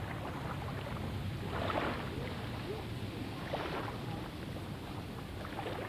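Wind across open lake water, with small waves lapping: a steady low rumble that swells softly twice, about two seconds in and again past three and a half seconds.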